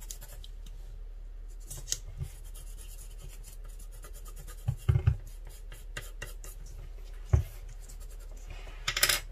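Colored pencil scratching on paper in short shading strokes, with a few low knocks in between, the loudest about seven seconds in.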